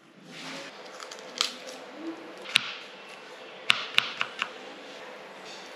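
Kitchen handling noises: a handful of sharp clicks and knocks, bunched around the middle, over a steady hiss.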